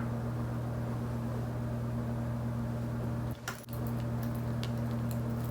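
A steady, low electrical or mechanical hum, like a running appliance or fan motor. It breaks off briefly about three and a half seconds in, then resumes.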